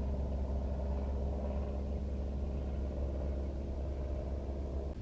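Boat engine idling steadily with a low hum, shut off near the end.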